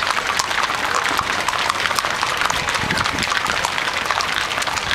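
Many cattle hooves clattering on the paved street as the herd passes, a dense, irregular run of sharp clicks.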